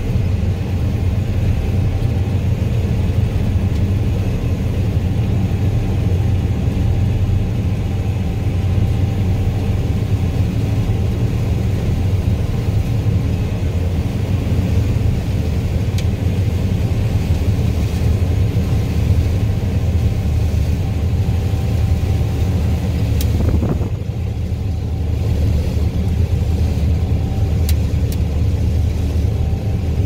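Steady low rumble of a John Deere combine's engine and threshing machinery running while harvesting soybeans, heard inside the cab, with a few faint ticks.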